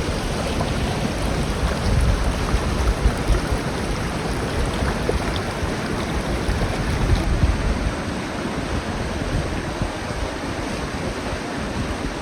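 Rushing river water, a steady even roar, with heavier low rumbling in the first half that eases about 7 to 8 seconds in.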